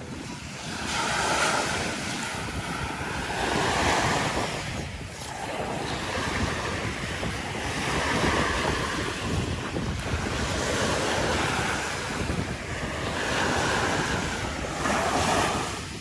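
Small waves breaking and washing up a sandy beach. The surf swells and fades every three to four seconds, with wind buffeting the microphone.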